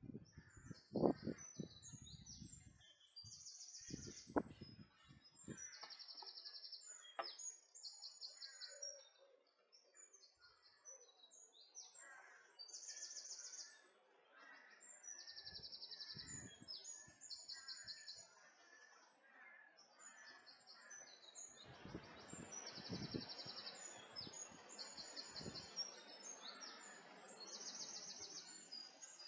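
Songbirds singing in the bankside trees, short chirping phrases repeated over and over. A few low thumps in the first few seconds, and a faint steady hiss joins in the second half.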